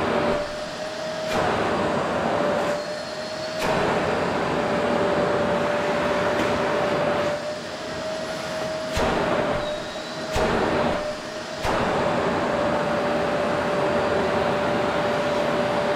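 Qilive vacuum cleaner running on a sofa: a steady rush of air under a constant high whine. The rush drops and comes back about five times as the nozzle works over the upholstery.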